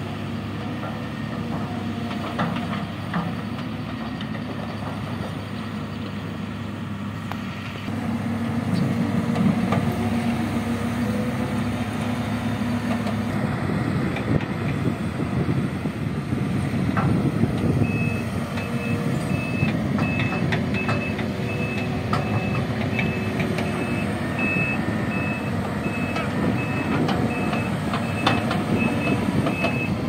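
Diesel engines of a Caterpillar tracked excavator and backhoe loader running steadily, growing louder about a quarter of the way in, with scattered knocks. From a little past halfway a reversing alarm beeps regularly at one high pitch, the warning of a machine backing up.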